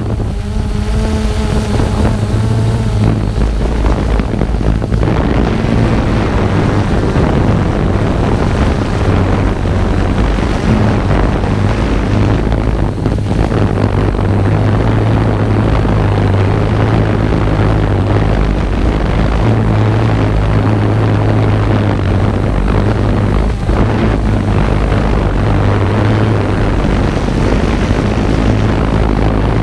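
Multirotor drone's electric motors and propellers running steadily, heard from its on-board camera: a constant loud hum with a noisy whirr over it.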